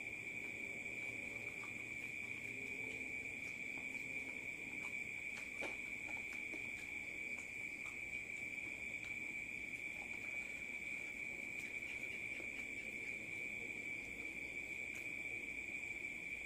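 Steady high-pitched trilling of crickets, unbroken throughout, with a few faint clicks and smacks of someone eating chicken feet by hand.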